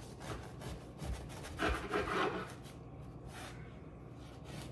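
A knife sawing back and forth through a cooled homemade loaf of bread, a rasping stroke with each pass through the crust.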